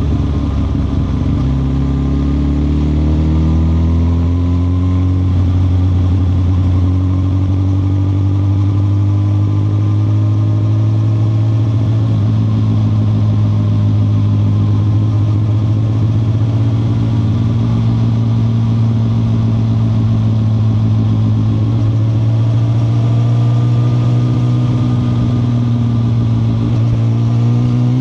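2021 Suzuki GSX-R1000R's inline-four engine running on the road. Its note dips about a second in, then climbs slowly and steadily, rising faster near the end as the bike accelerates. A steady rush of wind and road noise runs under it.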